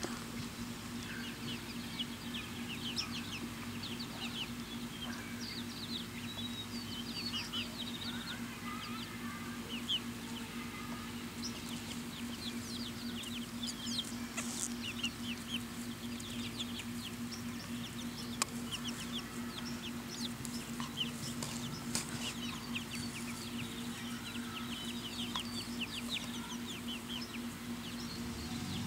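A flock of six-week-old chicks peeping and chirping continually: many short, high-pitched peeps overlapping one another. A steady low hum runs underneath.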